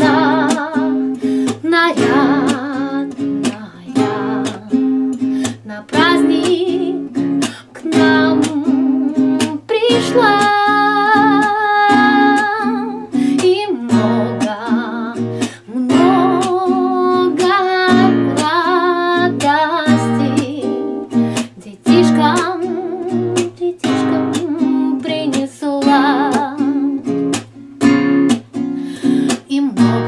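A woman singing to her own strummed accompaniment on a nylon-string classical guitar. A long note with vibrato is held in the middle.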